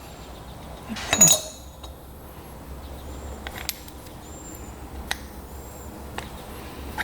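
Metal parts clinking as a loosened camshaft is worked out of a small motorcycle-type cylinder head: one sharp metallic clink about a second in, then a few faint light ticks.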